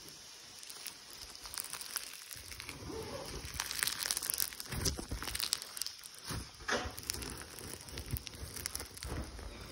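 Peachybbies 'Candy Cane Lane' slime, stiff and fluffy with glitter, being squeezed and pulled by hand. It gives off irregular crackling and crinkling with small pops.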